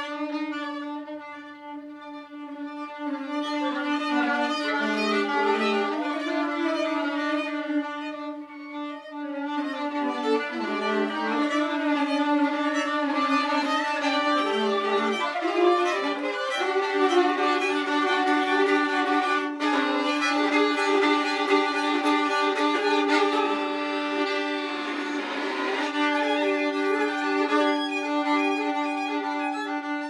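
Violin and viola played together with the bow: one holds a steady low note through most of the passage while the other's line moves and shifts above it. A single sharp click comes about two-thirds of the way through.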